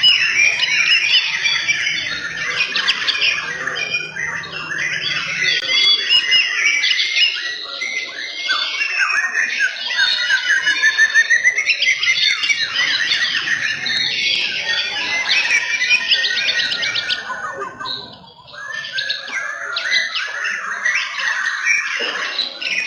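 White-rumped shamas (murai batu) singing in a songbird contest, several birds at once: rapid, varied phrases and trills that overlap, with a brief lull about 18 seconds in.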